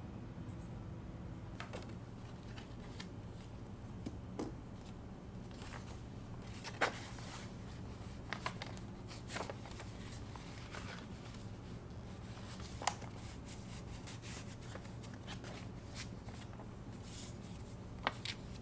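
Paper envelope being handled: crisp rustles of the paper and flap, with a few sharp clicks or taps, over a steady low hum.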